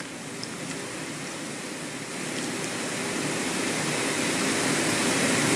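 Hot air rework gun blowing a steady hiss of air, growing gradually louder, as used to heat a phone board and lift off the CPU.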